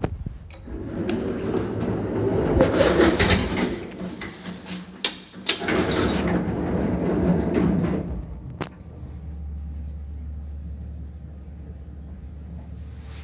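A 1993 MLZ passenger lift: several seconds of loud rattling and scraping from the doors and mechanism, with sharp clicks and brief high squeaks. After a click about nine seconds in, it settles into a steady low hum as it runs.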